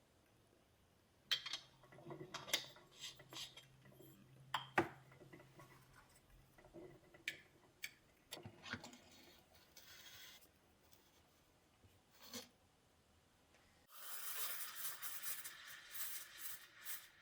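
Household objects being handled: scattered light clinks, taps and knocks like dishes and utensils set down. About fourteen seconds in, a continuous crackly hiss starts and carries on.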